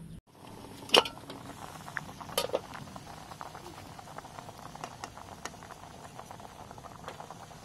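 Water boiling hard in a large metal pot, a steady dense bubbling patter. A sharp metal clank about a second in and a few lighter clinks a little later.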